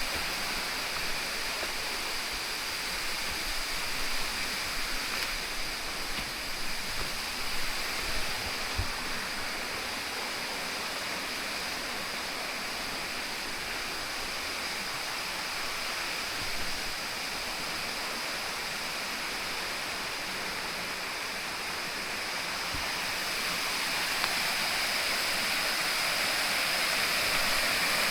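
Rushing water of a mountain stream, a steady hiss that grows a little louder near the end, with a few faint knocks in the first several seconds.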